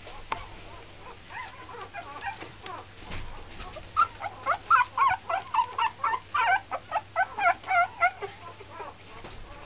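Puppies whimpering and squeaking in short, high-pitched cries, faint at first, then a quick run of about three or four cries a second from about four seconds in.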